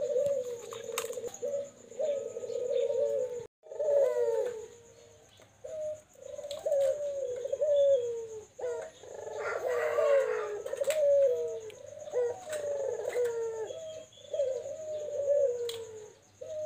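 Caged puter doves (Barbary/ringneck doves) cooing, phrase after phrase with hardly a pause, their calls overlapping, mixed with a few short higher chirps from other birds.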